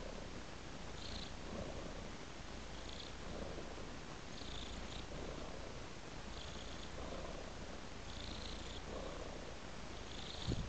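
Domestic cat purring steadily, swelling in slow cycles about once every two seconds with each breath. A short low thump near the end.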